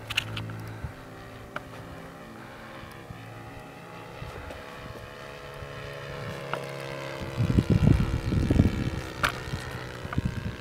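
Distant drone of a radio-controlled Spitfire's Magnum .53 four-stroke glow engine in flight, steady with slight shifts in pitch. About three-quarters of the way in, wind buffets the microphone with loud low rumbles.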